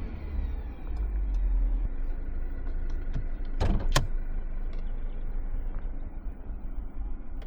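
Mercedes-Benz C 200 with a 1.5-litre petrol engine driving, a steady low rumble of engine and road noise. Two short sharp clicks come a little past the middle.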